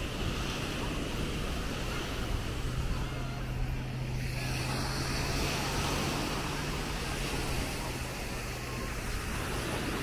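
Small Baltic Sea waves washing onto a sandy beach, the surf's hiss growing brighter about four seconds in, with a low steady hum underneath through most of it.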